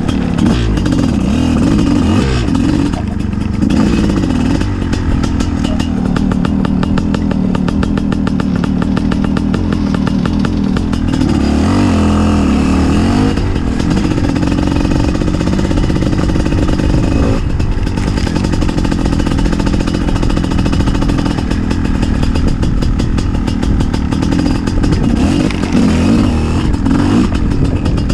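Gas Gas EC 250 two-stroke enduro motorcycle being ridden off-road, the engine revving up and down continuously as the throttle is worked.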